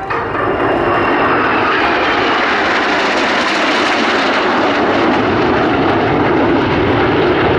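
Aerobatic propeller display aircraft (Royal Jordanian Falcons' Extra 330LX) flying past with engines running loud and steady. The sound swells within the first half second, and a faint high whine falls in pitch over the first few seconds as they pass.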